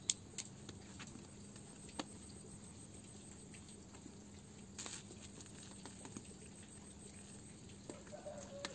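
Sparse light clicks and taps from handling a snapback cap and fingering its plastic back strap, with a sharper click at the very start and a short rustle about five seconds in.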